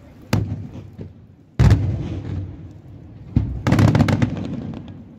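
Aerial firework shells bursting: a boom, then the loudest one about a second and a half in, then another boom followed by a rapid cluster of reports with a short echoing tail.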